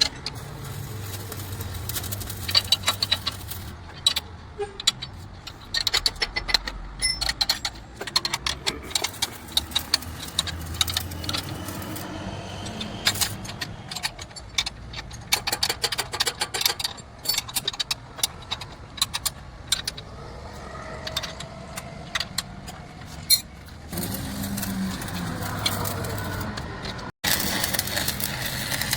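Many irregular sharp metallic clinks and knocks of tools working on a truck's leaf-spring assembly, over a low steady hum. Near the end a steadier sound takes over.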